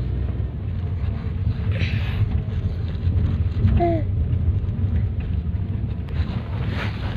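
Steady low rumble of a moving car heard from inside the cabin: road and engine noise with some wind. A short falling voice-like sound cuts in about four seconds in.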